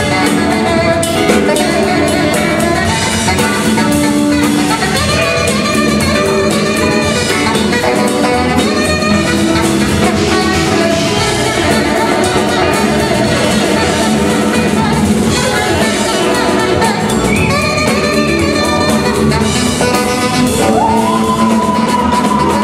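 Live jazz-rock band playing, a tenor saxophone carrying the lead line over drum kit, bass and guitar, with a long held note near the end.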